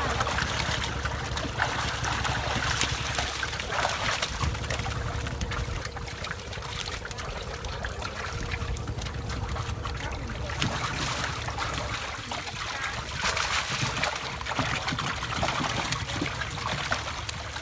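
Water sloshing, splashing and trickling as a long-handled dip net scoops live fish out of a plastic tub of water and lifts them dripping.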